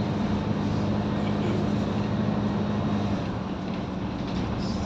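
Mercedes-Benz O530G Citaro articulated bus's diesel engine working hard, heard from inside the passenger saloon as a steady drone. About three seconds in the drone's main tone drops out and the sound eases slightly as the engine comes off load.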